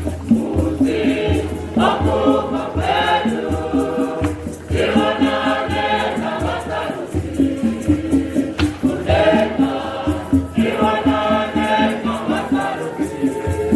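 Choir singing with a steady beat and shaken rattles.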